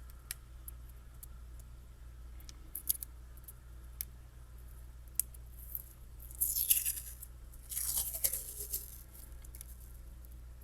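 A roll of washi tape being unwrapped by hand: small clicks and handling noise, then two short bursts of wrapper tearing and crinkling a little past the middle.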